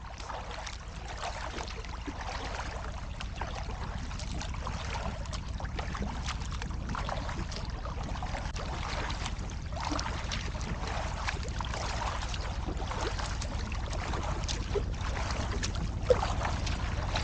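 A double-bladed paddle stroking a canoe along, with water splashing and dripping off the blades, over a steady low rumble of wind on the microphone. A single sharp tap near the end.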